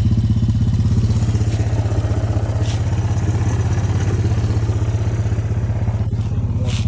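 Four-wheeler (ATV) engine idling steadily, with a few short clicks over it.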